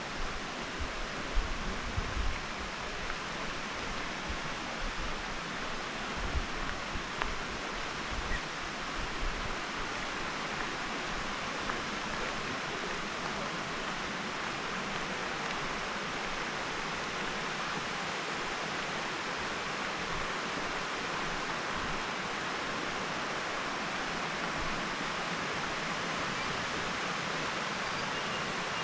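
Steady rushing of Taughannock Creek running shallow over flat shale ledges, with a few low knocks in the first third.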